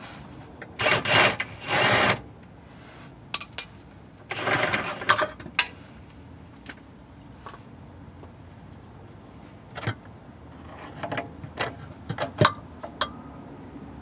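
Cordless impact wrench on an 18 mm swivel socket and extension running in three short bursts, backing out the large through-bolt of a Jeep Grand Cherokee transmission mount. Sharp metal clicks and clinks follow later, from hand tools and the socket being handled.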